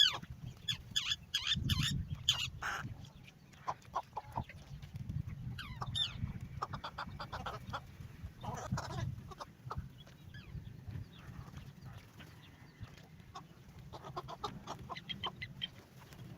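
Birds calling, with a quick run of shrill, falling squawks in the first few seconds, then scattered calls and clicks and a thinner cluster near the end, over a steady low rumble.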